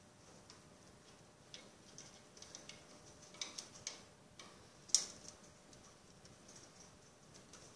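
Faint scattered clicks and taps from a monk parakeet's beak and claws working a plastic ring on a wooden perch, with a small cluster of clicks midway and one sharper click about five seconds in.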